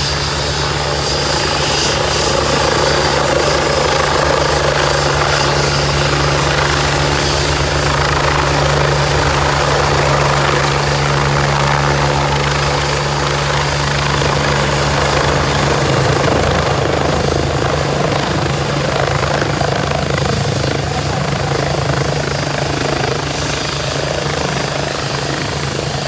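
AgustaWestland AW109 twin-turbine helicopter descending to land close by, its main rotor beating and turbines whining steadily and loudly.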